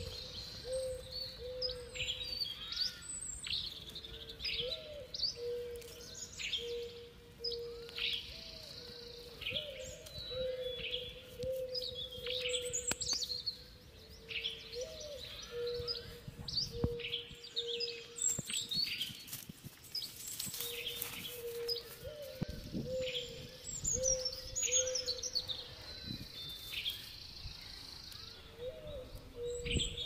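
Many small birds chirping and calling throughout, over a steady low tone that breaks off and resumes. Around the middle come a few knocks and a stretch of scraping as hands dig in dry soil.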